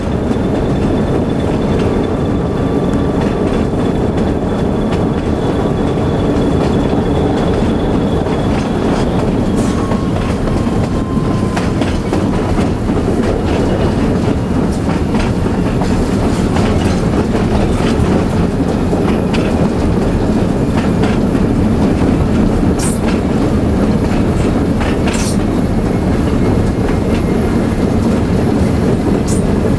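ALCO RSD-1 diesel locomotive rolling along, heard from its cab: a steady low engine drone with the wheels clicking over the rail. There are a few sharp clicks in the second half and faint, brief wheel squeals.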